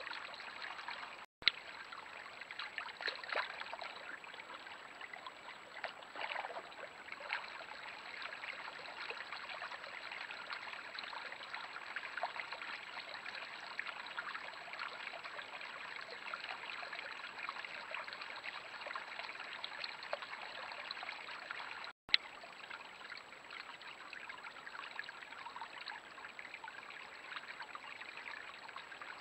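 Water running steadily in a creek, with small irregular trickling crackles and a faint steady high tone throughout. The sound drops out briefly twice, about a second in and again about two-thirds of the way through, each time ending with a sharp click.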